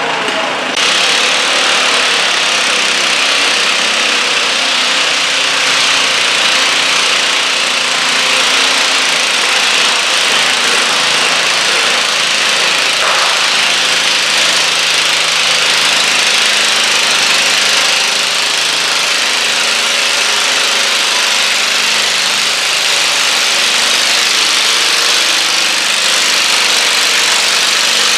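Stock garden tractor engine running steadily at high throttle under load, pulling a weighted stoneboat sled down a dirt track.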